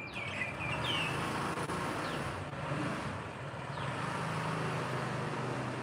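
A motor vehicle running steadily outside, a low engine hum, with a small bird chirping a quick run of short notes in the first second and twice more faintly later.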